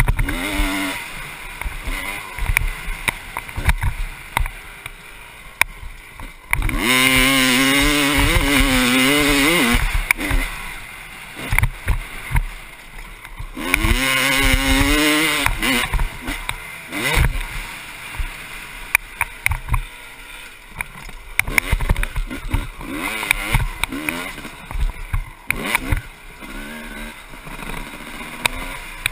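1996 Honda CR250's single-cylinder two-stroke engine under a rider's throttle. It winds up hard twice, for about three seconds each, around seven and fourteen seconds in, its pitch climbing and dropping through the revs. Between these it runs lower and quieter, with frequent sharp knocks and rattles from the bike over the rough track.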